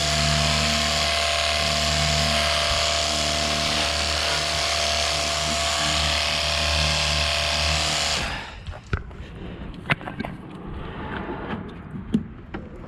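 Jet Hawk cordless pressure washer running, its pump motor humming steadily under the hiss of the water jet, then cutting off suddenly about eight seconds in when the spraying stops. After that, a few light clicks and knocks.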